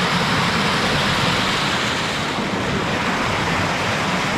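Rainwater runoff rushing down a street in a heavy downpour: a loud, steady rush of water.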